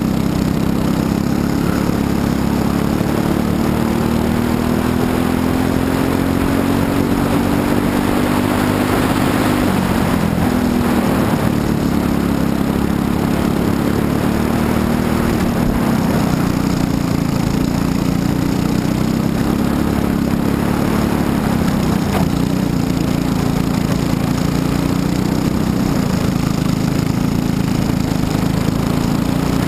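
Briggs & Stratton LO206 single-cylinder four-stroke kart engine at racing speed, heard from on board. Its revs climb and fall several times as the kart accelerates and slows for corners, with a sharp drop about ten seconds in.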